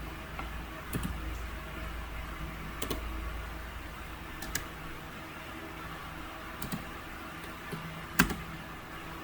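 A few scattered clicks from computer keys or a mouse, about five in all, over a faint low hum.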